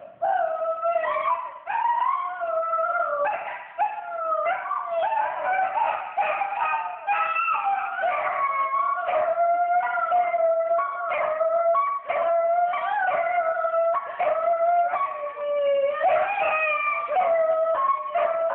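A dog howling: one long run of wavering calls that rise and fall in pitch, with short breaks between them.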